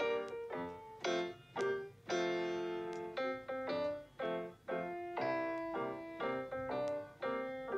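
Background piano music: single notes and chords struck one after another, each dying away.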